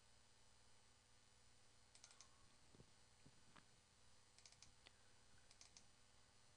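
Near silence broken by faint computer mouse clicks, in quick clusters of two or three about two, four and a half and five and a half seconds in, with a few single ticks between: double-clicks opening folders.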